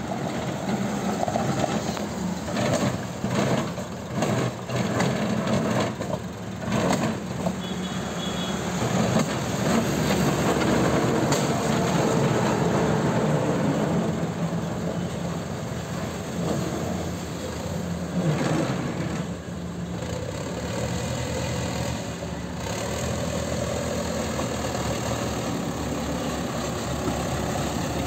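JCB backhoe loader's diesel engine running steadily, with a few knocks and rattles during the first several seconds.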